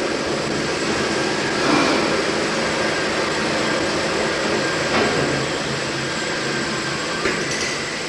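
Twin-cylinder Worsley Mesnes steam winding engine running through a wind: a steady mechanical noise with a few brief knocks.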